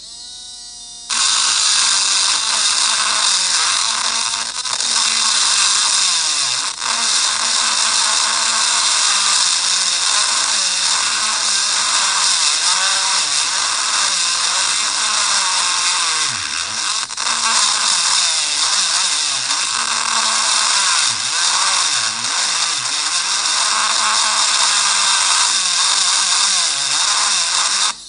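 Electric engraving pen running with its vibrating tip pressed into a stripped screw in a MacBook Pro's bottom case, hammering at the screw head to work it loose. A brief rising whine comes first, then a loud, steady buzz starts about a second in and stops just before the end.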